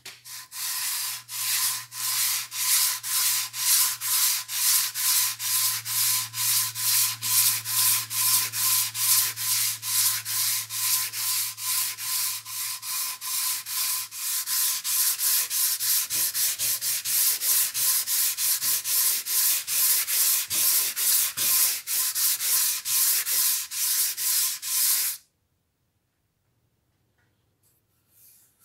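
Hand sanding block with sandpaper rubbed back and forth along the wooden body of a spirit level, a steady rasp at about two and a half strokes a second. It stops about three seconds before the end.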